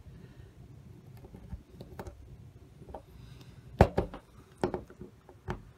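Small sharp metal clicks and taps of a hand tool pressing tiny model-railroad spikes into wooden ties beside the rail, a quick cluster about four seconds in and a few more near the end.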